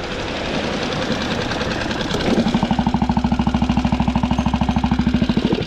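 Small outboard motor on a Solo Skiff running, with water rushing along the hull. A little over two seconds in it changes to a loud, rapid, even pulsing that lasts about three seconds.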